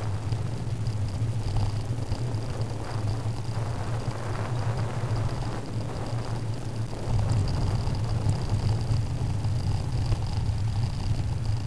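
Wind rumbling over a helmet camera's microphone as the bike rolls along a paved path, with a thin steady high-pitched whine. The rumble gets louder about seven seconds in.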